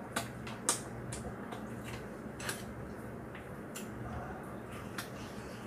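Eating at the table: a few scattered light clicks of a metal spoon and chopsticks against bowls, over a faint steady low hum.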